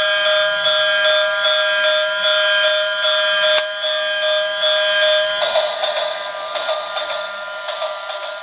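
Battery-powered transforming train robot toy playing its electronic sound effect through its small speaker: a steady, siren-like electronic tone with a fast pulsing high overtone. The pattern changes about five and a half seconds in, and the sound fades out near the end.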